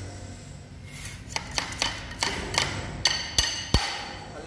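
A string of sharp knocks and clinks, about eight of them in the space of two and a half seconds, several ringing briefly with a metallic tone.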